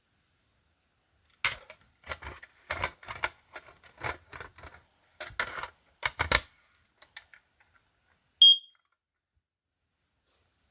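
Kidde i9010 smoke alarm giving a single short, high-pitched chirp, after about five seconds of irregular clicking and rattling from the unit being handled.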